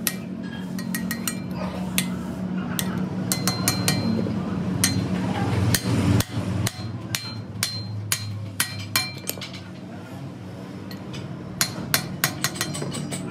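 Sharp metal-on-metal taps and clinks, irregular and in clusters, as a steel king pin bush is worked into a heavy truck's front steering knuckle, some taps ringing briefly. A steady low hum runs underneath.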